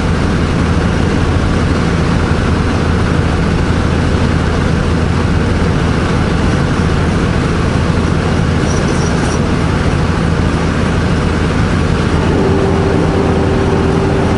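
Semi truck's diesel engine running steadily under way, heard from the cab with road noise. A steady tone comes in about twelve seconds in.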